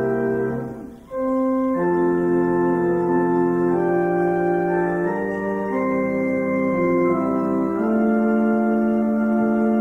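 Church organ playing slow, sustained chords. About a second in, one chord is released and there is a brief gap, then the playing resumes with chords changing every second or so.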